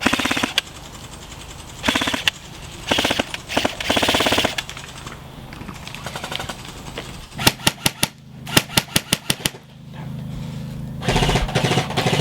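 Airsoft electric rifles firing: several short rapid bursts of mechanical clacks, then a run of quick single shots a few a second, then another rapid burst near the end.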